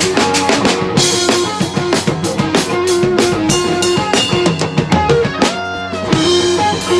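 A rock band jamming: a drum kit played hard on snare, bass drum and cymbals, with an electric guitar playing sustained notes over it, one note held and bent about five seconds in.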